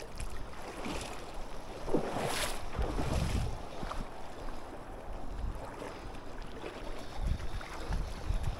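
Wind buffeting the microphone over the rush of river water, with a brief louder burst of noise about two seconds in.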